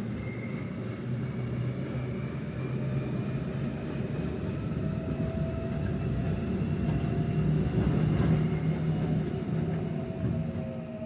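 Older-model Seoul Subway Line 3 train running on the rails: a steady rumble under a motor whine of several slowly gliding tones. It grows louder to about eight seconds in, then eases off.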